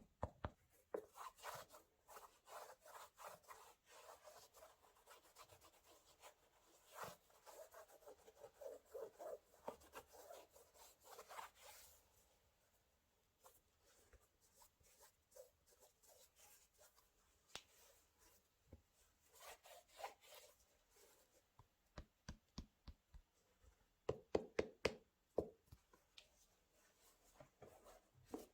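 Faint handling of a sneaker box and the shoes: rubbing and scraping with small clicks for about the first twelve seconds, then scattered taps, and a quick run of knocks a little before the end.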